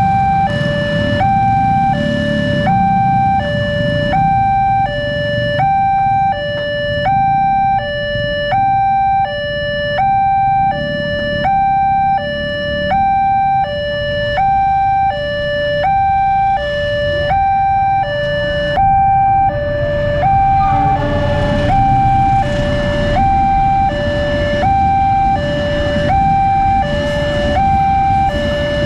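Railway level-crossing warning alarm: an electronic two-tone signal alternating high and low, about one high-low pair a second, sounding steadily over low road traffic noise. A freight train's low rumble builds in the second half.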